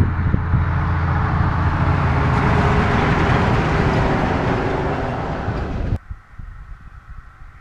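A heavy motor vehicle passes close by: a loud engine drone with tyre noise that swells to a peak about three seconds in. About six seconds in it cuts off abruptly, leaving only faint background noise.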